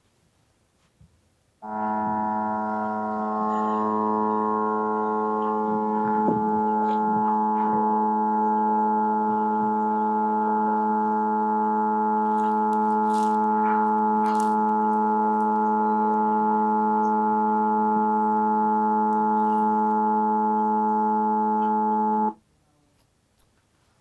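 Power transformer humming: a steady, even hum of many stacked tones, the noise of its laminated steel core changing size in the alternating magnetic field (magnetostriction), with no moving parts involved. The hum starts about a second and a half in and cuts off suddenly a couple of seconds before the end.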